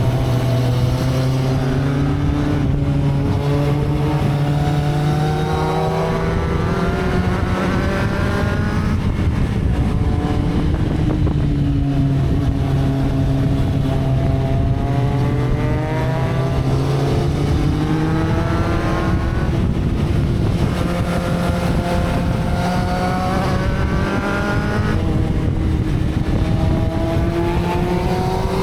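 Motorcycle engine running, its pitch rising and falling slowly several times as the revs change.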